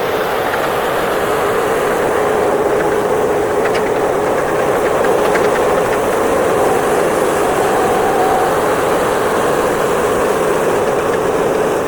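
Skid steer loader's engine running steadily at a constant pitch, loud and close.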